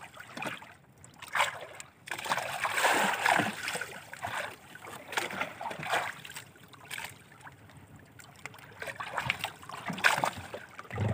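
Seawater splashing and sloshing against the hull and outrigger float of a small drifting boat, in uneven surges, with a longer surge about two seconds in.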